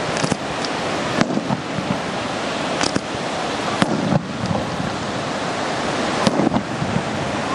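Fireworks fired as fans of gold comets: about half a dozen sharp cracks at uneven intervals over a continuous rushing hiss.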